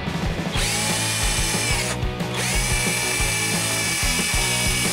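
Cordless drill spinning a steel wire wheel brush against a rusted metal mortar-shell fragment, scrubbing off rust. A high whine spins up about half a second in, stops briefly around two seconds, then starts again.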